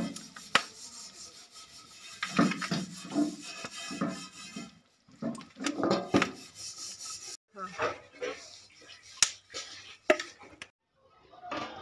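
Indistinct voices talking, with a few sharp clicks of a spoon and a steel ladle against the jar and the aluminium cooking pot, two of them close together near the end.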